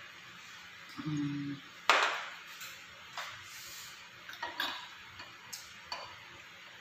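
A sharp clink about two seconds in, then several lighter clinks and knocks of a drinking glass and tableware against a glass-topped table. A brief low hum comes shortly before the first clink.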